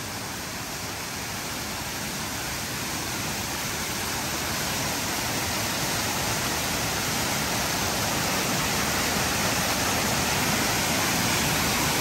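Rushing water of a mountain creek and its cascades below High Shoals Falls: a steady, even rush that slowly grows louder.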